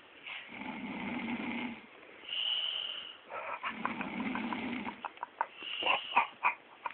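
A sleeping woman snoring: two long, rasping snores about two seconds apart, then a stretch of short clicking, sputtering sounds in the back of the throat.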